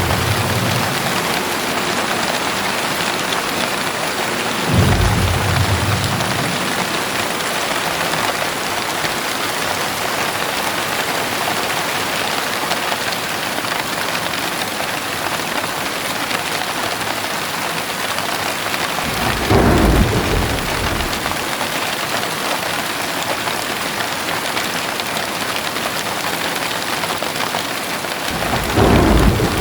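Heavy rain pouring steadily, with three short, low rumbles of thunder: about five seconds in, again around twenty seconds, and once more at the very end.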